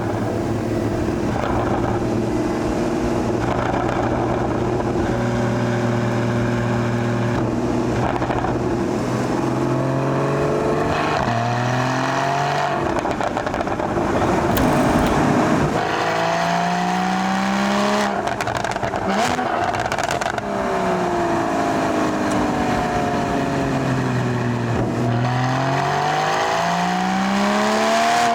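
Porsche 981 Boxster GTS's 3.4-litre flat-six and exhaust, running at steady revs for about the first ten seconds, then revving up and dropping back several times as it accelerates and shifts gears.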